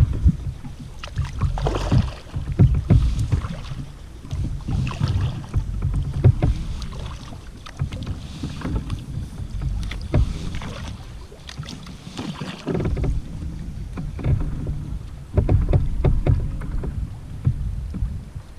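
Kayak paddle strokes splashing and dripping in choppy sea water, with gusty wind rumbling on the microphone.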